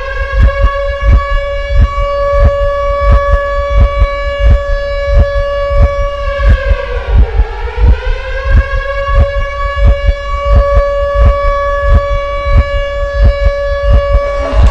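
Civil-defence air-raid siren warning of a rocket attack, holding one steady tone; its pitch sags and climbs back about halfway through. Under it runs a low heartbeat-like thumping, about two beats a second.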